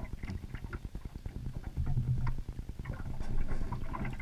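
Small outboard motor on a fishing boat running at low speed with a rapid, even putter, a little louder from about halfway through, with a few light clicks over it.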